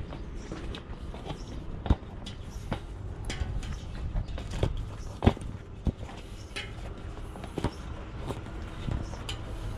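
Hands working a Maxxis tubeless mountain-bike tyre onto its rim: irregular sharp clicks and knocks, the loudest about two, five and seven and a half seconds in, over a low steady rumble.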